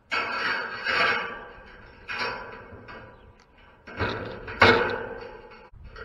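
Metal clattering and scraping from fence wire being twisted with pliers against a welded-wire steel fence panel, in several sharp bursts that each ring off; the loudest comes a little before the end.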